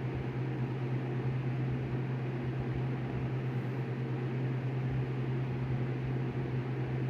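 Steady hiss with a constant low hum from a weather radio receiver during dead air between broadcasts.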